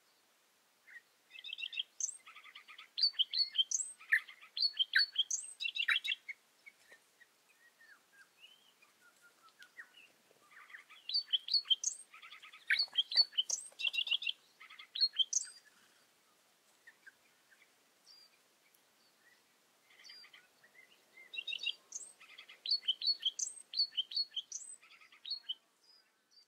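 Bird song: three bursts of rapid, varied high chirps and trills, each about five seconds long and roughly ten seconds apart, with quiet between them.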